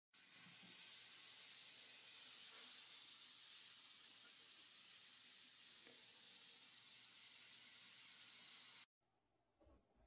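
A yellow bath bomb fizzing as it is held under bath water: a steady hiss that cuts off suddenly near the end.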